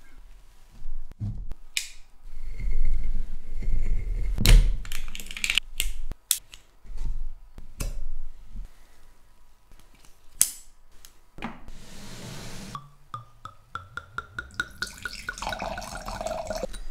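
Wine bottle being opened with a waiter's corkscrew (clicks, scraping and creaking, a sharp pop near the middle), then red wine glugging out of the bottle into a large wine glass over the last few seconds, the pitch rising as the glass fills.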